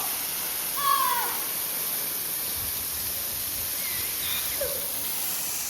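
Steady rushing noise of the Henrhyd Falls waterfall and its plunge pool, with a faint, distant falling shout about a second in.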